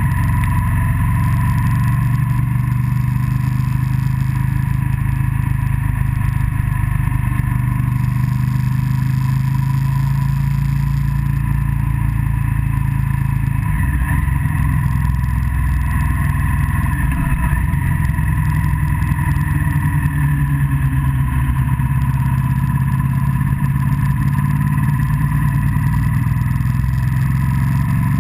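Vehicle engine running steadily under way, with road and wind noise, picked up by a camera mounted on the vehicle. The engine note wavers briefly about halfway through.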